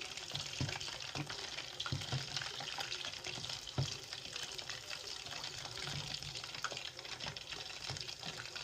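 Pancake-battered chicken pieces frying in hot oil: a steady sizzle with scattered light knocks.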